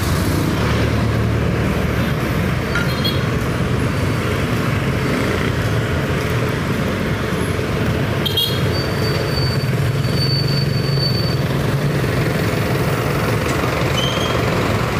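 Steady din of road traffic and vehicle engines, with a faint thin high tone for a couple of seconds around the middle.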